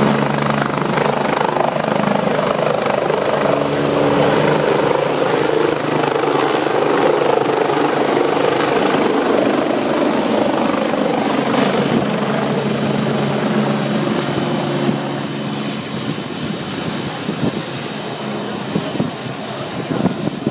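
Helicopter lifting off and flying away with a water bucket slung beneath it: loud, steady rotor and engine noise that slowly fades over the last several seconds as it climbs away.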